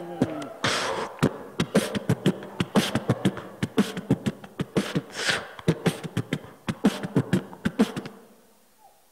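A man beatboxing into a handheld microphone: a fast, rhythmic run of vocal percussion strokes that stops about eight seconds in.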